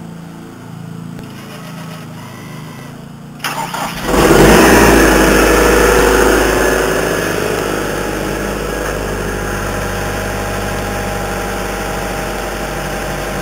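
Vermeer SC60TX stump grinder's engine being started: after a low steady hum, it cranks briefly about three and a half seconds in and catches, runs loud for a few seconds, then settles into a steady idle.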